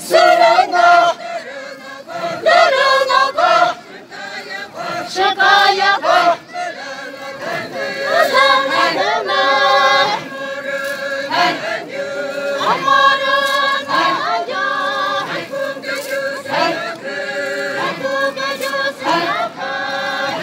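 A group of women singing a traditional dance song together, chanted in short repeated phrases with brief breaks between them.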